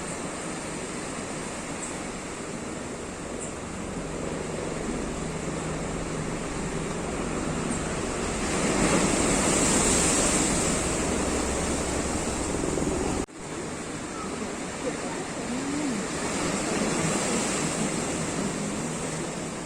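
Sea waves breaking and washing in: a steady rush of surf that swells to its loudest a little before the middle, cuts out sharply for an instant just after, then swells again more gently near the end.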